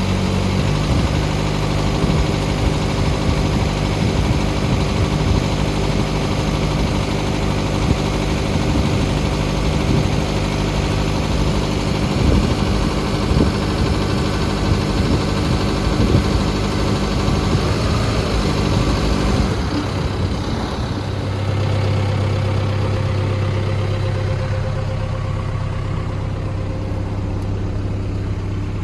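John Deere 6130M tractor's diesel engine running steadily, close up. About two-thirds of the way through the sound changes: the higher hiss fades and a steadier low hum comes to the fore.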